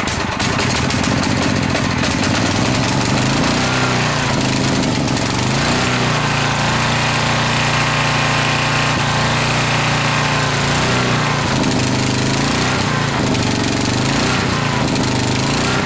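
Coleman Maxa 4000 ER Plus generator's 8 hp engine running steadily just after starting from a long sit, its speed dipping and picking back up a few times, once a few seconds in and again near the end.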